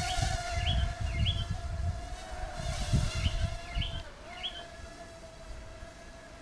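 Huajun W606-16 Volcano mini quadcopter hovering, its propellers giving a steady whine that dips briefly about four seconds in. Birds chirp in short runs of three, and gusts of wind buffet the microphone in the first half.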